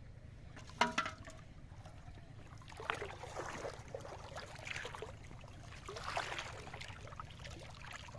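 Water splashing and sloshing in irregular bursts, over a steady low rumble, with a sharp knock about a second in.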